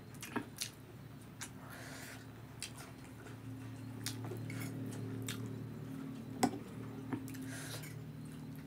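Eating sounds: a fork clinking against a plate in scattered sharp clicks, the loudest about six and a half seconds in, with soft chewing and mouth noises. A low hum sits under the middle few seconds.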